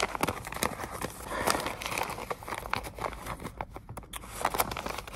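A folded paper letter being unfolded and handled: rustling and crinkling with many quick crackles.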